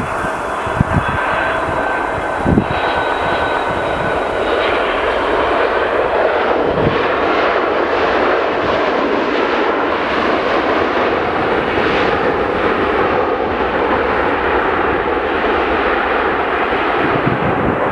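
Jet engines of a Boeing 767-200ER airliner during its landing, a steady dense jet noise with a faint whine. In the first few seconds, wind gusts thump on the microphone.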